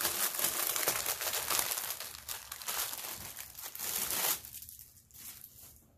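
Plastic wrapping crinkling and tearing as it is pulled off a board-game piece, a dense crackle that stops about four seconds in.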